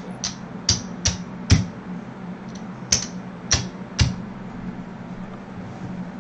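Casino chips clacking as they are stacked onto bets on a craps layout: a series of about seven or eight sharp clicks over the first four seconds, then only a steady low hum.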